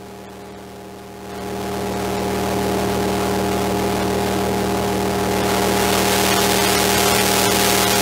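Soma Lyra-8 synthesizer run through a Radial Tonebone Classic tube distortion pedal: a steady low hum-like drone under a hiss of distortion. The hiss swells from about a second in and is loudest near the end as the pedal's knobs are turned.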